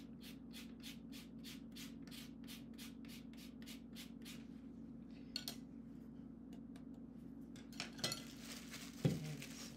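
Lemon being zested on a long rasp-style zester: quick, even scraping strokes, about five a second, for about four and a half seconds, then stopping. A few knocks and a rustle follow near the end.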